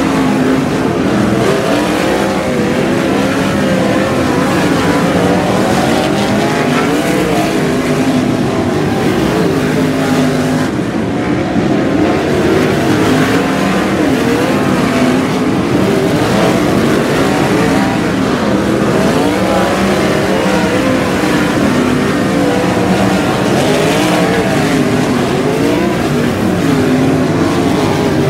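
A field of 360 sprint cars racing, their 360-cubic-inch V8 engines overlapping and rising and falling in pitch continuously as they accelerate down the straights and lift for the turns.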